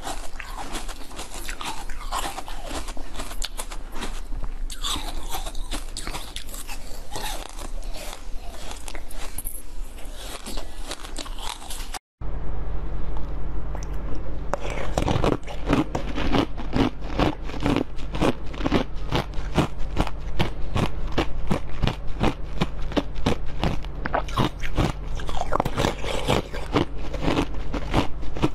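Close eating sounds: biting and chewing of jelly-like sweets, then, after a sudden cut about twelve seconds in, rapid sharp crunching as blue dome-shaped pieces are bitten and chewed.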